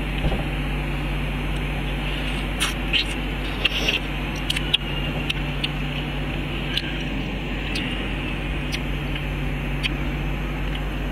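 A steady background hum and hiss, with scattered sharp clicks of wooden chopsticks picking among shells on a tray.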